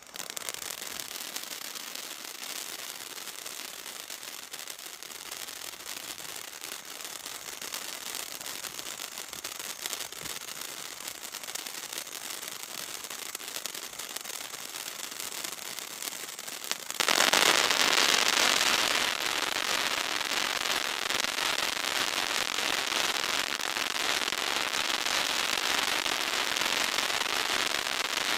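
200-gram consumer firework fountain burning, a dense continuous crackle of many small pops. About seventeen seconds in it grows suddenly louder and fuller, and stays that way.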